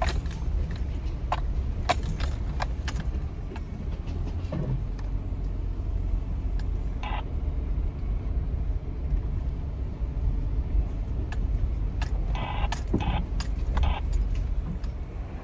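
In-cabin sound of a 2019 Subaru Forester driving slowly over a bumpy dirt trail: a steady low rumble of engine and tyres, with scattered clicks and rattles as the car bounces.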